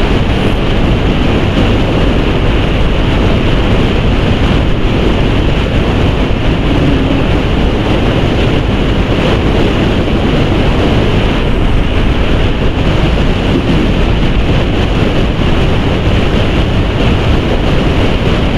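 Steady wind rush on the microphone of a Bajaj Pulsar NS200 motorcycle riding at speed, mixed with engine and road noise.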